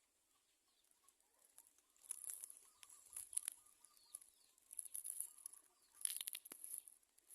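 Faint high-pitched rustling and thin chirping from a nest of society finch chicks, coming in four short clusters starting about two seconds in.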